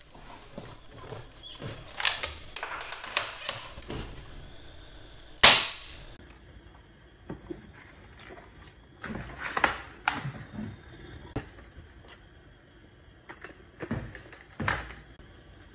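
Toy Cheytac M200 dart sniper rifle: one sharp shot about five and a half seconds in, amid plastic clicks and clacks of the gun being handled, with a cluster of clacks near the end as the bipod is worked.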